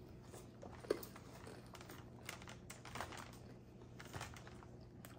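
Faint eating sounds: chewing, with scattered light clicks and crinkles from a fork in a plastic salad container and tortilla chips being picked up, and one sharper click about a second in.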